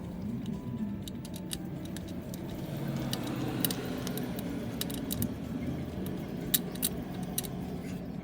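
Irregular light metallic clicks and clinks of a socket tool on the oil filter housing bolts, over steady background music.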